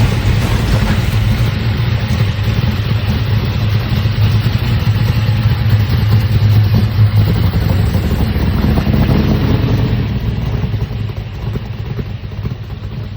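Modified street car's engine rumbling loudly with a deep, steady low note, dying down after about ten seconds as the car pulls away.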